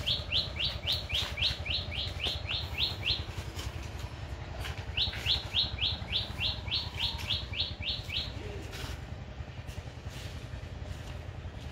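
A bird calling in two runs of quick, sharp, high notes, about four a second. Each run lasts about three seconds, and the second starts about five seconds in. A steady low rumble runs underneath.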